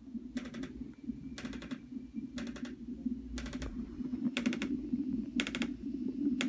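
Wallach Fetal2EMR fetal monitor running: short clicking bursts about once a second from its strip printer, over the steady low Doppler sound of the fetal heartbeat channel.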